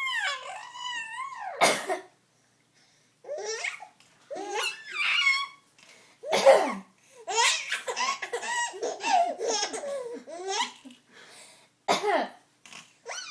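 A baby laughing in repeated high-pitched bursts and belly laughs, with a woman's sharp coughs between them setting off the laughter.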